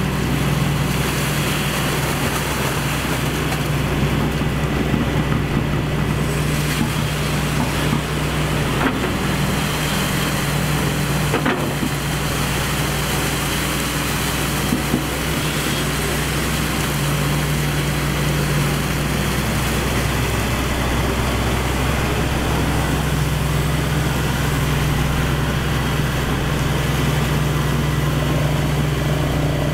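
Excavator's diesel engine running at a steady speed, with a few short knocks.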